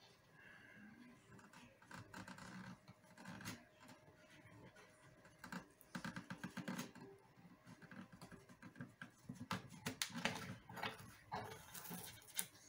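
Faint, irregular scraping strokes of a blade shaving wood, in short runs with a few small clicks, as a surface is trimmed to lie straight across.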